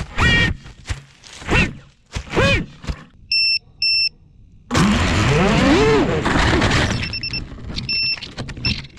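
A rapid run of short sounds: brief whining sweeps, then two short electronic beeps. A longer noisy rush follows, its whine rising and then falling in pitch, and after it come a few more short beeps.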